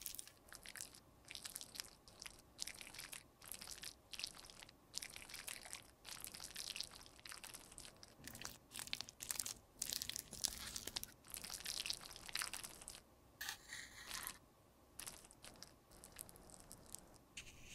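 Close-up crunching and scraping as a cosmetic product is worked by hand, in short repeated strokes roughly one or two a second.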